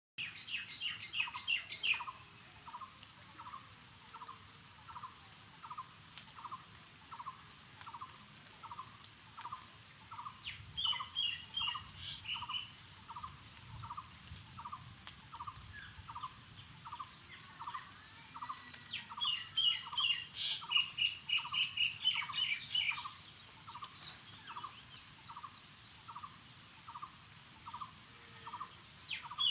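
Birds calling outdoors: one bird repeats a short, even note about twice a second throughout, while others break in with bursts of higher, rapid chirping near the start, in the middle and later on.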